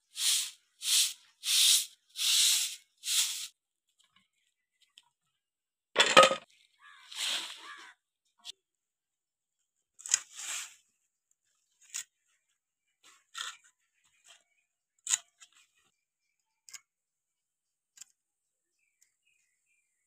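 About six swishing strokes in quick succession, a thump about six seconds in, then scattered short snaps and tearing as fresh pumpkin vine stems are broken by hand and their stringy skin is peeled off.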